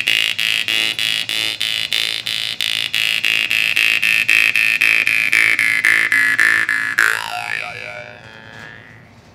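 Berenzenko Mega Bass jaw harp played with a steady plucking rhythm of about four strokes a second: a deep twanging drone with a bright buzzing overtone that slowly drops in pitch. Near the end the plucking stops and the note rings on, its overtones bending and wavering as it fades.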